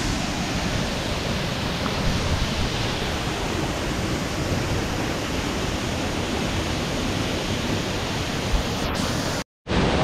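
Waterfall about 30 m high falling into its plunge pool: a steady, even rush of falling water. It cuts off suddenly near the end.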